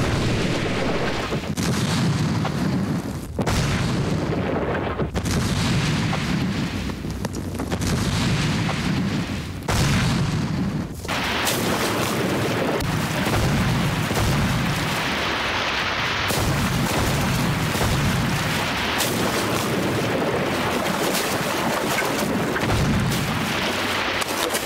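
Battle sound effects: a continuous din of gunfire and explosions, with many sharp shots over a heavy low rumble.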